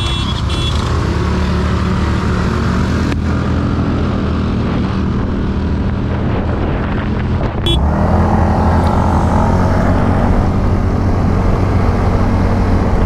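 Hero Destiny 125 scooter's single-cylinder engine running at steady riding speed: a steady drone under heavy low rumble. A brief high beeping at the very start, and a click about eight seconds in, after which it grows slightly louder.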